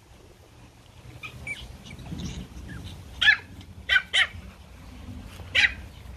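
Pomeranians yapping in play: four short, high-pitched barks, two of them close together, the first the loudest, with a few fainter squeaks before them.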